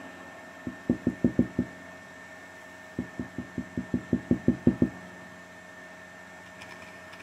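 Plastic glitter shaker bottle tapped repeatedly to settle the glitter: a quick run of about six taps, then after a pause a longer run of about a dozen, some five or six a second.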